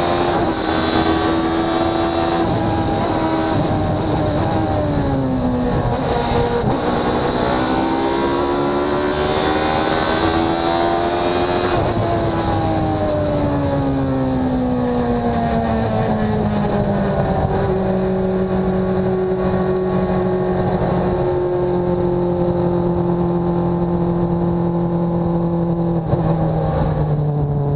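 Open-cockpit race car engine heard from the cockpit at speed, with wind rush: the revs dip and climb over the first dozen seconds, then fall steadily as the car slows from about 170 to about 70 km/h, settling to a lower, steady pitch as the wind noise fades. A thin, steady high-pitched whine runs throughout.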